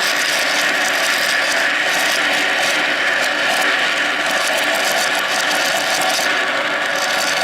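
Marbles rolling and clattering along a plastic Kumikumi Slope marble-run track, a steady, dense rattle of small clicks.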